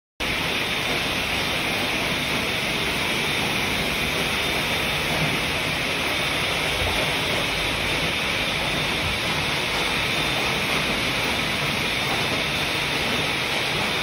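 Primultini band sawmill running steadily with no cut in progress: a continuous, even rushing noise of the band blade, wheels and drive, with no changes or impacts.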